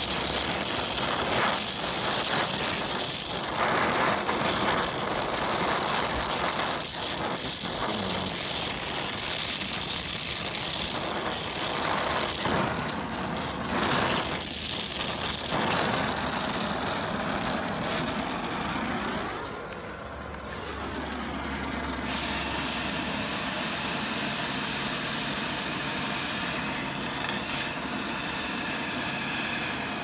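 Oxy-acetylene torch flame hissing steadily as it heats copper pipe red-hot. The sound dips about twenty seconds in, then carries on as a steadier, duller hiss.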